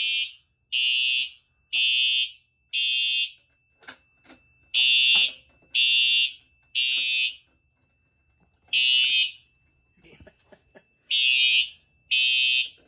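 System Sensor TrueAlert fire alarm horn sounding an evacuation alarm after a manual pull station was pulled. It gives loud horn blasts of about half a second each, mostly in groups of three with a longer pause between groups, the temporal-3 evacuation pattern. A faint steady high tone runs underneath, and a few small clicks fall in the pauses.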